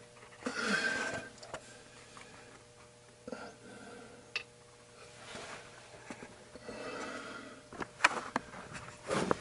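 Intermittent handling noises from work on an air-conditioning unit: rustling and scraping with a few sharp clicks, over a faint steady hum.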